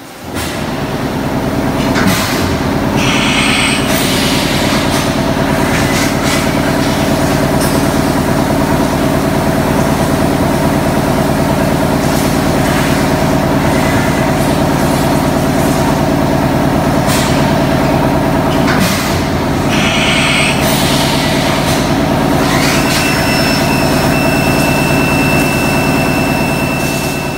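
CNC milling machine cutting a metal airsoft gearbox block under coolant spray: a loud, steady machine drone with hiss, with brief higher-pitched cutting bursts about three seconds in and again near twenty seconds, and a thin high steady whine from about twenty-two seconds on.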